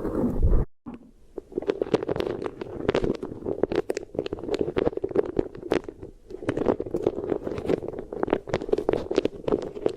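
Close-miked ASMR chewing: a dense, irregular stream of wet clicks and crackles, broken off briefly under a second in.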